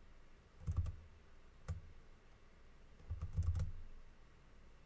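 Computer keyboard typing in short bursts of keystrokes: a quick flurry about a second in, a single keystroke, then another flurry past the middle.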